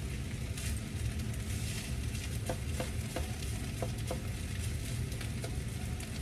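Kimchi fried rice sizzling steadily in a hot wok while a silicone spatula stirs and presses it. A handful of short scrapes and taps of the spatula against the pan come in the middle, over a low steady rumble.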